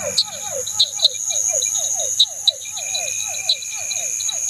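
Night pond chorus: insects keep up a steady high trill while small frogs give short falling calls, several a second, with scattered sharp clicks.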